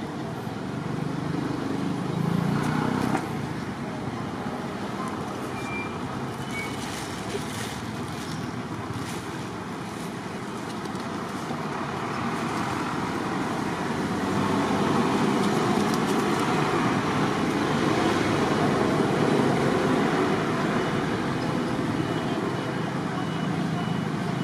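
Steady outdoor background noise of road traffic, a continuous rushing rumble that grows louder in the second half.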